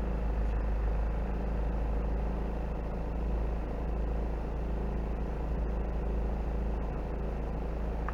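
1986 Toyota 4x4's engine running steadily while rock crawling.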